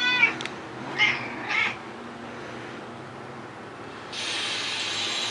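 A 16-year-old house cat meowing once for his water, then two short, fainter sounds about a second later. About four seconds in, a steady hiss starts up.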